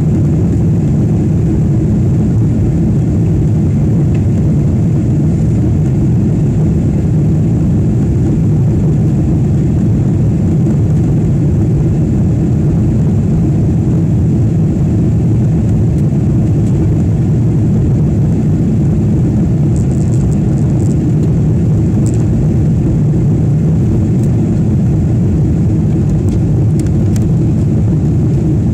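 Steady low rumble of a Boeing 777-300ER airliner heard from inside the passenger cabin in flight: its GE90 turbofan engines and the airflow over the fuselage, holding constant.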